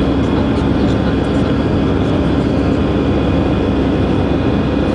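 Airbus A319 jet engines and airflow heard from inside the cabin, airborne after takeoff: a loud, steady rush of noise with a steady hum underneath.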